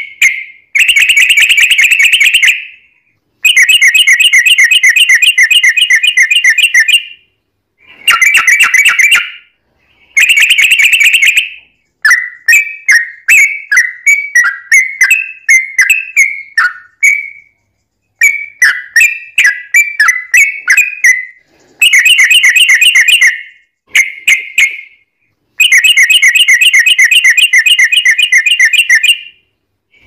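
Yellow-vented bulbul (trucukan) song: loud, fast rolling trills of bubbly whistled notes in bouts of one to four seconds with short breaks. Near the middle comes a longer stretch of looser, varied chattering phrases.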